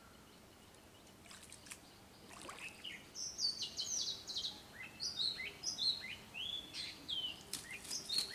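Songbirds chirping: quick high notes, many falling in pitch, starting about a second in and growing busier.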